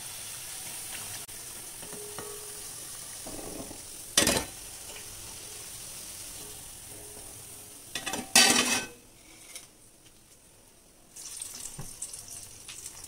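Banana-stem vadai sizzling as they deep-fry in hot oil in an iron kadai, a steady hiss. Two sharp clanks of kitchen utensils come about four and eight seconds in; the sizzle drops away for a couple of seconds near the end, then resumes.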